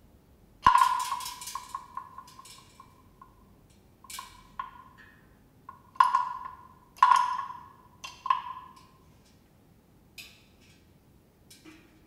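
Small bells struck one after another, each ringing briefly at about the same high pitch before dying away. A quick run of strikes comes about a second in, then single strikes a second or so apart, the last few only faint taps.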